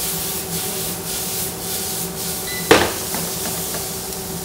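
Diced fish frying in a pan on an induction hob, a steady sizzle as the pan is tossed and stirred. A single sharp knock about two and a half seconds in.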